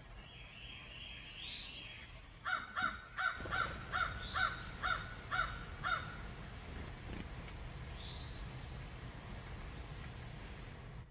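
A bird calling, a loud series of about nine short calls at roughly two a second that starts a couple of seconds in and stops about halfway through, over a steady background hiss.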